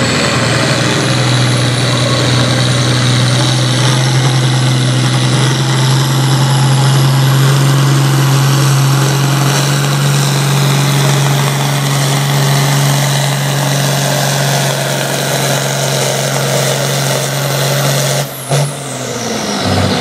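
International Harvester farm tractor's diesel engine running at full throttle under load as it drags a pulling sled, a steady drone with a high whine over it. About 18 seconds in the engine drops off and winds down as the pull ends.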